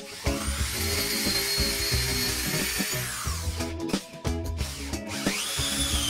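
An electric power tool's motor whines up to speed, runs steadily for about two and a half seconds, then winds down; a second run starts near the end. Background music with a steady beat plays throughout.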